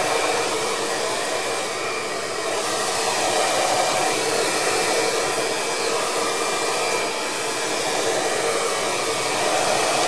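Parlux 3800 compact hair dryer, a model with a built-in silencer, blowing steadily as a continuous rush of air. Its user finds it not that quiet, but not really loud either.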